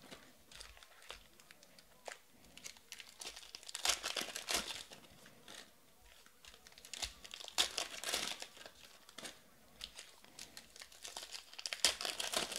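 Foil trading-card packs (2020 Panini Prizm Baseball) crinkling in the hands and being torn open. The crinkling comes in three louder bursts, about four seconds in, around eight seconds and near the end, with quieter handling between.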